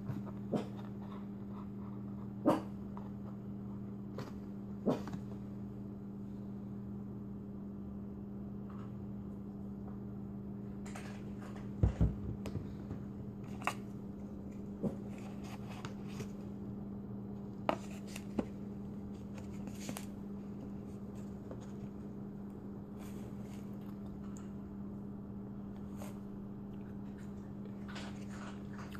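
Scattered light clicks and knocks of a syrup bottle and a fork being handled against a paper plate, over a steady low electrical hum.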